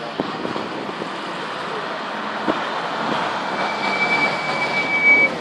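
Ferrari V8 sports car driving past at close range, its engine growing steadily louder as it nears. A thin, steady high whine joins in for the last couple of seconds.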